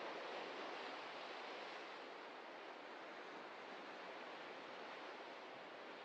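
Ocean surf washing on the shore: a continuous hiss of breaking and receding water that eases slightly over the first couple of seconds, then holds steady.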